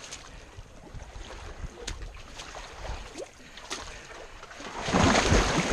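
Shallow lake water lapping and sloshing among rocks close to the microphone, with small drips and clicks, then a louder splash and rush of water about five seconds in.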